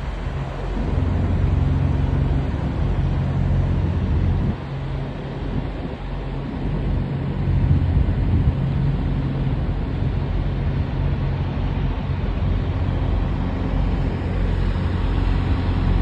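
Semi-truck diesel engines idling, a steady low hum with a few held tones that dips briefly about four and a half seconds in and swells again around eight seconds.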